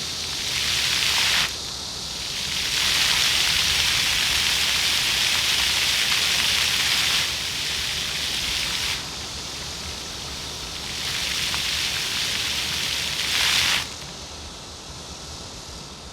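Floor fountain jets spraying and splashing onto pavement in a steady hiss, surging louder and dropping back several times as the jets switch on and off, then falling away sharply near the end.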